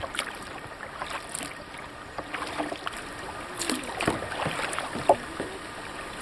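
Kayak paddling on calm water: paddle blades dipping and splashing in an irregular rhythm, with drips and small splashes between strokes and one sharper splash about five seconds in.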